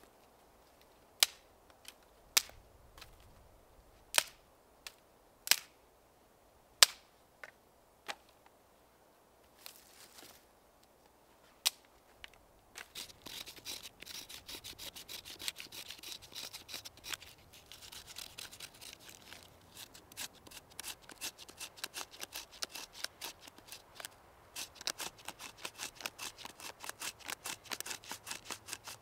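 Wood being worked by hand. First comes a string of separate sharp knocks, then about halfway through a fast run of rasping cutting strokes, several a second.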